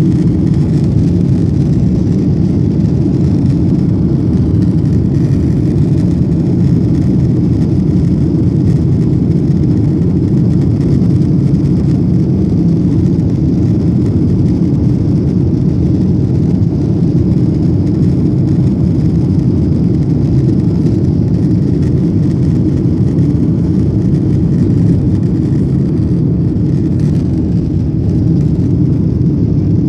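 Boeing 737 cabin noise during the climb after takeoff: the jet engines at climb power and air rushing past the fuselage, a loud, even drone that does not change.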